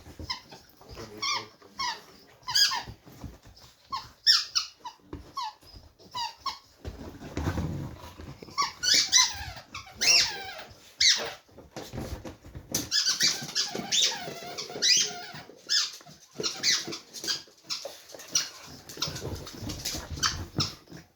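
A dog chewing a squeaky toy, making irregular bursts of short squeaks that slide up and down in pitch.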